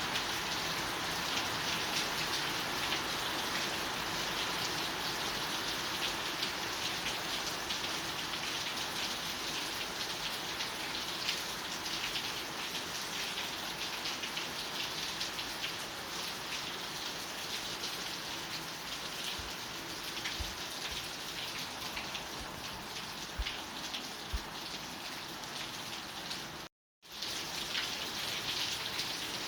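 Steady rain falling on a surface, a dense patter of drops. It cuts out completely for a split second near the end, then resumes.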